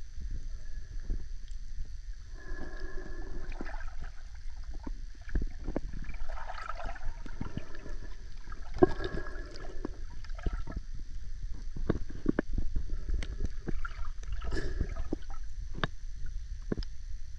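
Underwater sound from a camera moving through water: a steady low rumble with scattered clicks and knocks, and a few brief pitched sounds about 3, 7, 9 and 15 seconds in.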